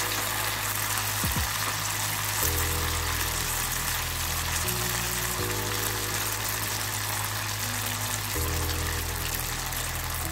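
Chhena balls deep-frying in hot oil in a kadai, a steady bubbling sizzle, over background music of sustained chords that change every couple of seconds.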